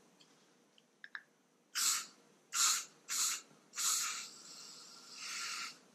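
Aerosol can of silicone spray lubricant spraying in four short hisses, then one longer hiss of about a second and a half. A couple of faint clicks come just before the first hiss.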